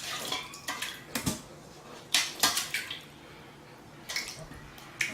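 Irregular clattering and clinking of hard objects, a run of separate knocks with the loudest cluster about two seconds in.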